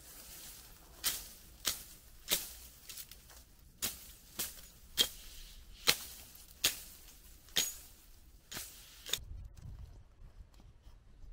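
Dry dead branches being snapped by hand, about a dozen sharp cracks at irregular intervals. The cracking stops about nine seconds in, giving way to a low rumble.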